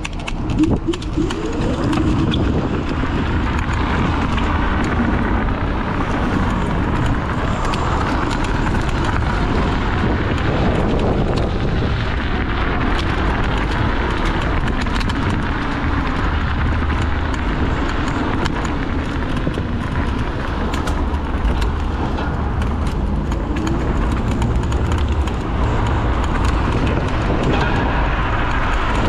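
Steady rush of wind over the microphone and tyre noise from a Dualtron Victor electric scooter riding at speed, with car traffic alongside.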